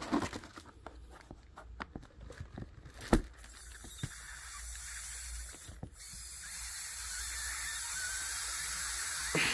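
Plastic pry bar clicking and knocking against the lid of a plastic hard case, then, about three seconds in, a steady hiss of air leaking in as the vacuum-tight lid seal is pried open.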